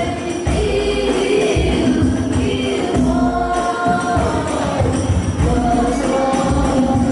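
Sholawat devotional singing by a group of voices with hadrah frame drums (rebana) beating a steady rhythm, played loud through a PA sound system.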